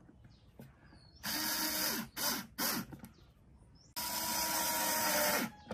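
Cordless drill-driver driving screws to fix a small tweeter into a speaker cabinet: a run of under a second, two short blips, then a longer run of about a second and a half.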